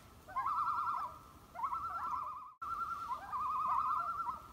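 Common loon tremolo calls: several quavering, fast-wavering phrases in a row, each rising in and then warbling rapidly up and down.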